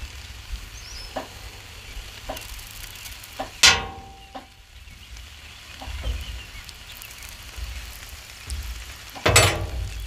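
Butter sizzling faintly on the hot steel cooktop of a Blackstone griddle. A metal spoon clinks against the steel about four seconds in, and there is a louder clank near the end.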